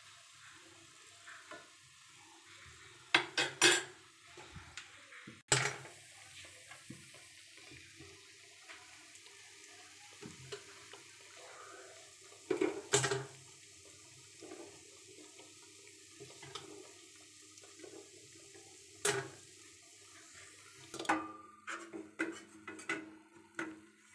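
Metal slotted spoon and steel cookware clinking and knocking as fried shakarpare are handled and served: a few sharp clinks several seconds apart, then a quick run of them near the end, over a faint steady hiss.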